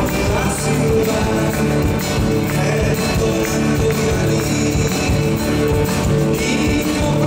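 Live band music in an Argentine folk-dance style, with a male voice singing into a handheld microphone over it.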